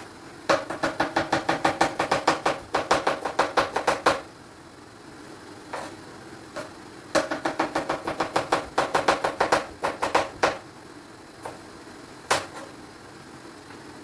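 Kitchen knife chopping fast on a cutting board, about six strokes a second, in two runs of some three and a half seconds each, with a few single knocks between and after.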